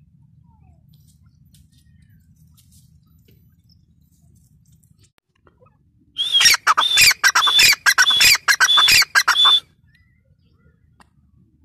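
Grey francolin calling: a loud run of about a dozen quick, shrill notes lasting some three seconds, starting about six seconds in and stopping abruptly.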